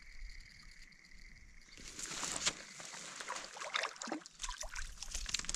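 Water splashing and sloshing at the pond's edge, starting about two seconds in, as a hooked trout thrashes near the surface while being reeled in.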